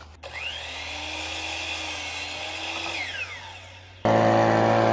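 Electric power saw spinning up to speed, running for about three seconds while cutting lumber, then winding down. About a second before the end, a sudden cut to a loud steady hum.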